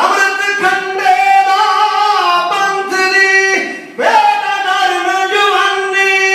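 A man's voice singing long, high held notes into a microphone over a PA system, in phrases broken by a short breath about four seconds in.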